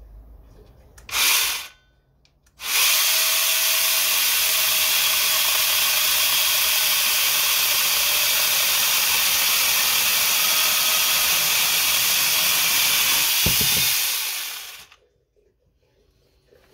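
Battery angle grinder fitted with an 11.5-inch chainsaw conversion bar: a brief blip of the trigger about a second in, then about twelve seconds of steady running as the chain cuts through a small log, winding down near the end.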